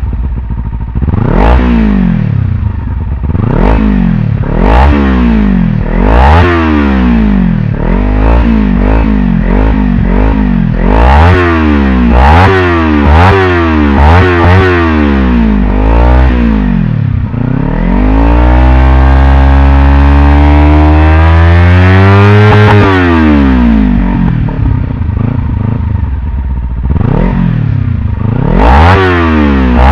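Kawasaki Ninja 300's parallel-twin engine, breathing through an Akrapovič slip-on exhaust, being revved in neutral. It gives a run of quick throttle blips about one every second and a half. About two-thirds of the way in comes one long held rev that climbs slowly and drops back to idle, and a few more sharp blips follow near the end.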